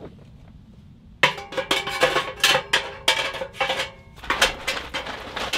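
Metal clanking and scraping from a small camping wood stove as a hand works inside its open firebox: a sharp clank about a second in, then a busy run of ringing clinks and scrapes.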